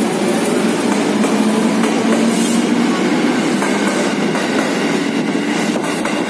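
Electric commuter train running past a station platform: a steady rumble of wheels on the rails with a low hum.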